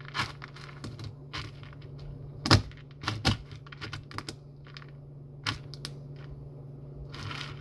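Irregular sharp clicks, cracks and knocks of cat food being crushed and mashed by hand in a bowl, the loudest about two and a half and three seconds in, over a steady low hum.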